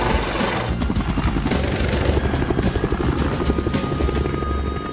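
Air ambulance helicopter running at lift-off power, its rotor blades beating in rapid, even pulses, with a steady high whine joining about three seconds in.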